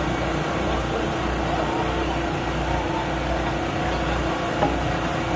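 A steady low motor hum under a constant wash of outdoor noise, with no distinct bangs or clear speech.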